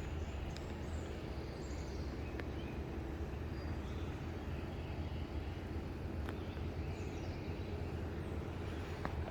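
Kubota SVL75-2 compact track loader's four-cylinder diesel engine running steadily with a low, even drone, with a few faint clicks over it.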